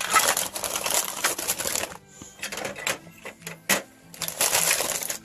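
Small plastic Lego pieces rattling and clicking as they are handled and rummaged through: a dense rattle for the first two seconds, then scattered single clicks with one sharper click near the middle, and another short rattle near the end.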